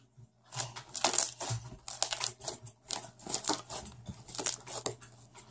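Fluffy slime being squeezed and stretched by hand, giving a run of irregular crackling pops that starts about half a second in.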